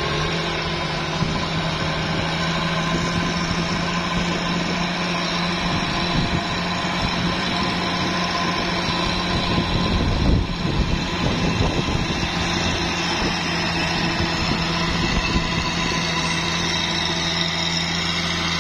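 Mitsubishi Fuso truck's diesel engine pulling hard up a steep climb under load, a steady heavy drone that holds its pitch, with a brief rougher surge about ten seconds in. The labouring engine is putting out thick black exhaust smoke.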